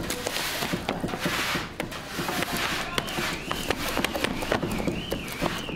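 Busy clatter of many quick knocks and taps, as of hard things being handled and set down, with a high tone that wavers steadily up and down joining about halfway through.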